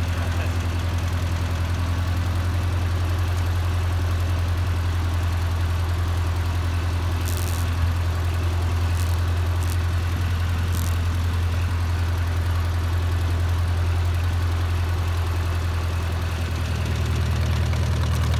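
Small vintage tractor engine idling steadily, then getting louder with a deeper note near the end as the tractor pulls away.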